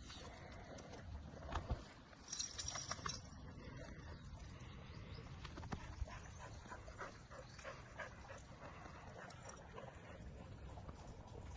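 A dog moving about, with faint scattered ticks and rustling and a short, louder hissing burst about two seconds in.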